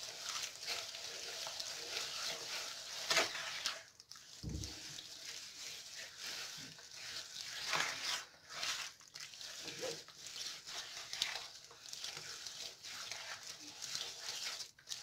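A bare hand mixing and kneading a moist, oily dough of ground peanuts, sugar and egg in a wooden bowl, making irregular wet rubbing strokes of uneven rhythm.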